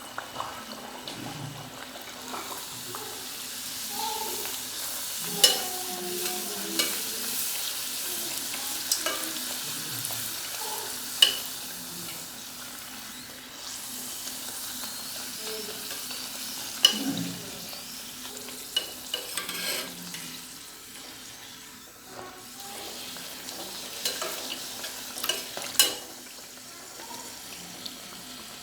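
Beetroot masala puris deep-frying in hot oil: a steady sizzle, with a few sharp clicks along the way.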